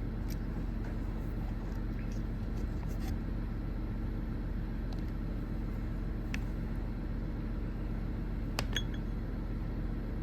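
Steady low mechanical rumble, like an engine running in the background, with a few faint clicks and taps from test leads and connectors being handled.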